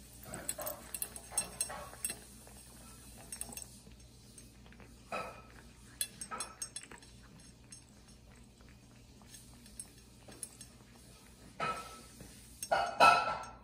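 Cat eating wet food from a stainless steel bowl: wet chewing and licking with light clinks and taps on the metal bowl, the loudest clinks, with a brief ring from the bowl, near the end.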